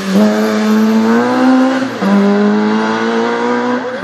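Rally car engine accelerating hard through the gears, its note rising steadily and dropping sharply at an upshift about two seconds in and again near the end.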